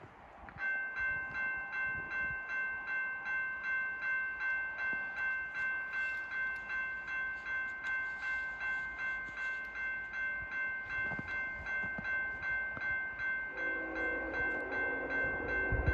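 Railroad grade-crossing warning bell ringing steadily, a little over two strikes a second, starting about half a second in. Near the end the approaching freight train's locomotive horn joins in, sounding a chord.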